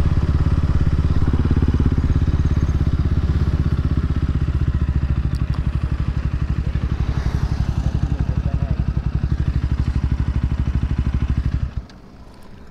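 Single-cylinder engine of a KTM RC 200 sport bike, heard from the rider's seat, running with a steady low pulsing beat as the bike rolls slowly, then cut off suddenly near the end.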